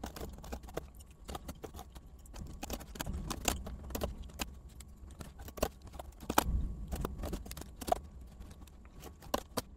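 Typing on a computer keyboard: a fairly faint, irregular run of quick key clicks over a low background hum.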